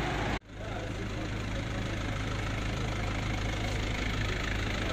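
A motor vehicle's engine idling steadily, with the sound cutting out for an instant about half a second in.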